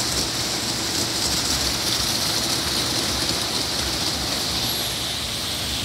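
Ryko SoftGloss Maxx rollover car wash running, its side brushes spinning against a car. A steady hiss over a low machinery hum.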